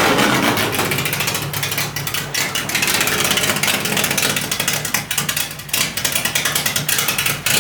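Fiat 133 engine running unevenly just after catching on a cold start, with a rapid, irregular crackle and a fluctuating level.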